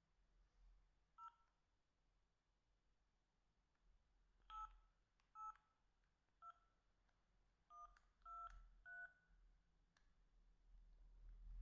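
Samsung SH-710 mobile phone keypad tones: seven short dual-tone beeps as keys are pressed, one about a second in and then six more in quick irregular succession, each key giving a different pair of pitches.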